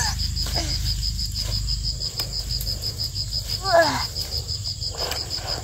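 An insect calling in an even, high-pitched pulse train, about five chirps a second, over a low rumble. A brief voice cuts in just under two-thirds of the way through.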